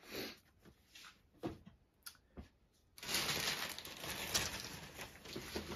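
Handling noise from cardboard packaging: a few light taps and rustles of a boxed mug being handled, then, about three seconds in, a sudden stretch of steady rustling and crinkling as hands dig through a cardboard shipping box and its packing material.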